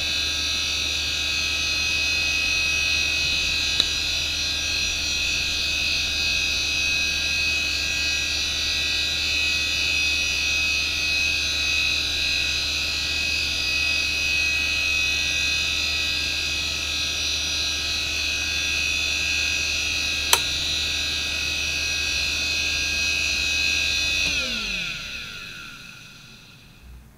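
Samsung WN310820A 1.08 GB IDE hard drive, with a Nidec spindle motor at 4500 rpm, running with a steady high whine and two single sharp ticks. Near the end it is powered off and spins down: the whine falls in pitch and fades away.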